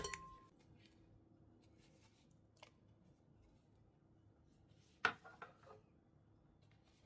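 Quiet kitchen handling noises: a sharp click at the start, a faint tick about two and a half seconds in, and a sharp click followed by a quick run of smaller clicks about five seconds in.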